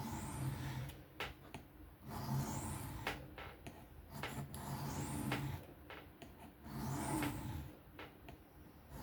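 Knife blade stroked freehand across an Atoma diamond sharpening plate: a series of scraping strokes about a second apart with short pauses, a zipper-like rasp as the edge runs over the plate's grid lines.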